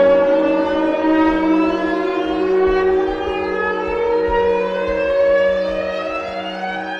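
Electronic music: a sustained, wailing, siren-like synthesizer drone over a steady low tone, its pitch gliding slowly and starting to rise near the end.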